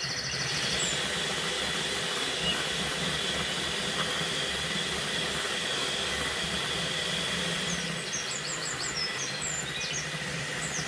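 Russell Hobbs electric hand mixer running steadily, its twin beaters whipping a thick cream mixture in a glass bowl.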